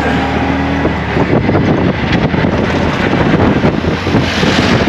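Auto-rickshaw engine running while under way, with wind buffeting the microphone. The engine's steady hum is plainest in the first second; after that gusty wind noise takes over.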